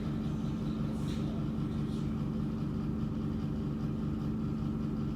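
Steady low mechanical hum of a running machine, with a faint rustle about a second in.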